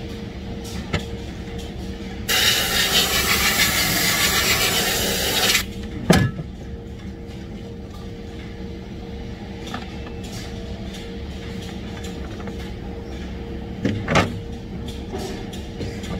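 Compressed air hissing loudly for about three seconds, then two sharp knocks, over the steady hum of factory machinery.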